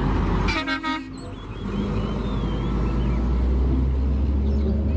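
Heavy truck engine running with a steady low rumble, and a short horn toot about half a second in.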